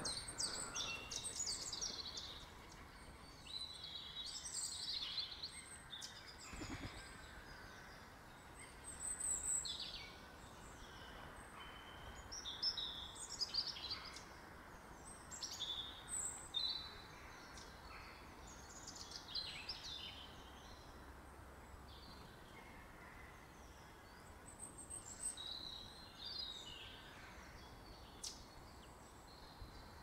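Small songbirds calling in short bursts of high chirps and twitters every few seconds, with several birds overlapping at times, over a faint steady background hiss.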